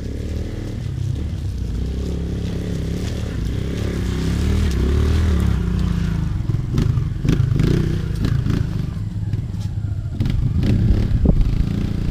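Dirt bike engine running and revving up and down as the bike climbs a slippery, rocky trail, with sharp knocks and clatter from the bike over the rough ground starting about halfway through.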